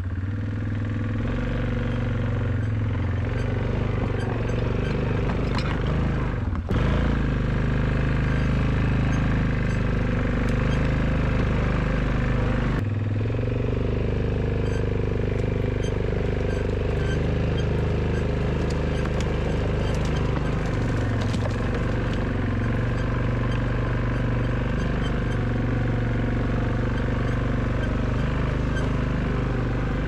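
ATV engine running steadily under way, with two brief breaks in the sound about 7 and 13 seconds in.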